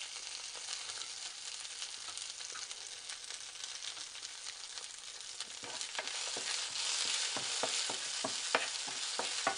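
Hot oil sizzling in a frying pan as a tempering of mustard seeds and urad dal fries with freshly added green chillies and coriander leaves. From about halfway through, a wooden spatula stirs it, with many short clicks against the pan.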